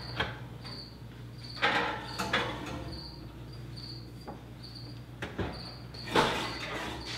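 Short knocks and clatter as a glass roasting dish is handled and set into an oven, over a faint high chirp that repeats about every half second.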